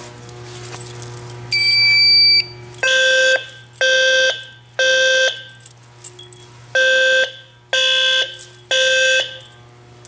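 Fire alarm horns, System Sensor SpectrAlert Advance horn strobes and a low-frequency sounder, sounding together in the temporal-3 evacuation pattern: three short blasts, a pause, then three more, as the silenced horns are reactivated. A short high electronic beep sounds just before the horns start.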